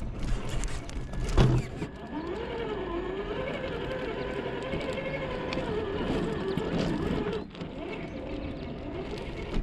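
Traxxas TRX-4 crawler's electric motor and geared drivetrain whining under throttle, the pitch wavering up and down as the truck crawls, with a sharp knock about a second and a half in.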